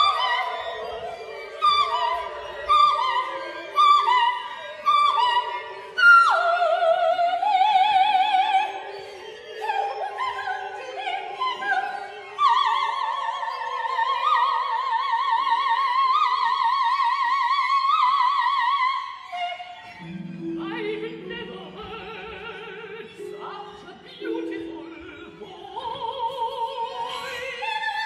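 Operatic soprano singing a birdsong passage: short, quickly repeated high phrases, then long held notes with wide vibrato. About two-thirds of the way in, low sustained orchestral notes come in beneath quieter singing.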